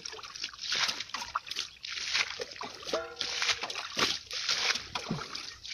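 Muddy ditch water splashing and sloshing in repeated bursts, as it is bailed out with a rope-swung bucket to drain the ditch for fishing.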